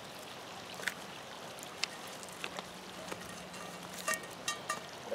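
Butter melting in a cast iron skillet over a campfire: a quiet, steady sizzle with scattered small pops.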